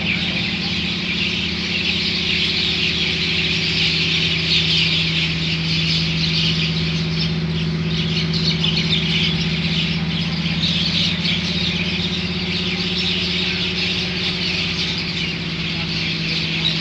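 A large roosting flock of mynas, about a hundred birds, chattering and squealing together without a break as they settle for the night. A steady low hum runs underneath.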